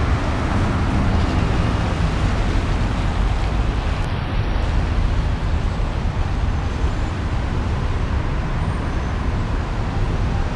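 Steady city street noise: a low, even traffic rumble.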